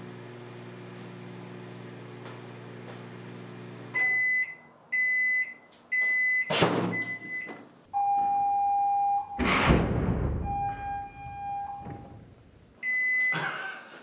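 Countertop microwave oven humming as it runs, shutting off about four seconds in, followed by its four end-of-cycle beeps with a sharp crack among them. A few seconds later the butane lighters heated inside burst with a loud blast that blows the door open. A held electronic tone sounds before and after the blast.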